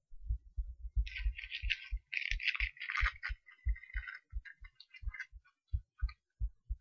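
Human heartbeat heard through a cheap acoustic stethoscope: short, low thumps in a steady lub-dub rhythm. A scratchy, higher rustling noise lies over the beats for the first few seconds and comes back in snatches later.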